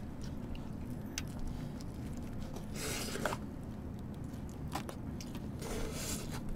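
Eating noises: bites and chewing of cheese-filled toast and rustling of its paper wrapper, with small clicks and two short crackly bursts about three and six seconds in, over a steady low hum.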